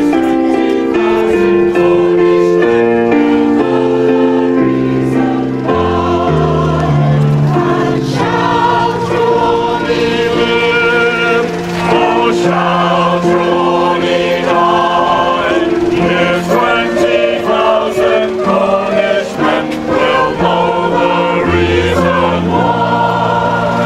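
Mixed community choir singing a song to electric keyboard accompaniment. Steady held chords lead for the first several seconds, and the full choir of voices comes in about eight seconds in.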